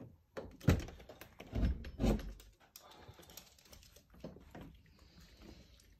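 Irregular clicking and tapping of a small dog's claws on a laminate floor, mixed with a few heavier knocks. The loudest knocks come about a second and two seconds in.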